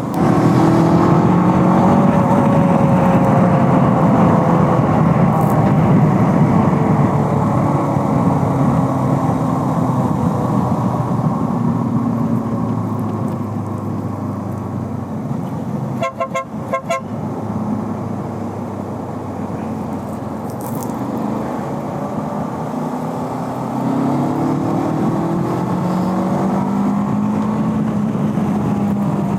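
Bristol Venturi 500 motorcycle engine running on the road, its pitch rising and falling as it accelerates and changes gear, over steady wind and road noise. A short horn toot sounds about halfway through.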